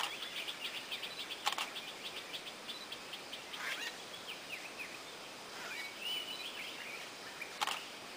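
Small forest birds calling: a fast run of high chirps, then scattered chirps and short whistles. Three sharp clicks stand out, one at the start, one about a second and a half in, and one near the end.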